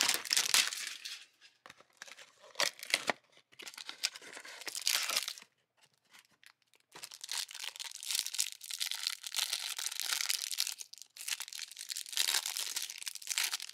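Trading-card hanger box being opened and the plastic wrap on the stack of cards crinkled and torn off, in several bursts of rustling, with the longest stretch from about seven seconds in to near the end.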